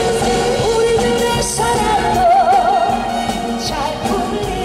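A woman singing a Korean trot song into a handheld microphone over a loud backing track, her sustained notes carrying a wide vibrato.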